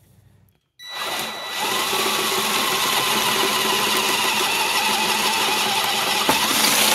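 Power drill with a step drill bit boring a bolt hole through the sheet-metal panel, starting about a second in and running steadily with a high whine.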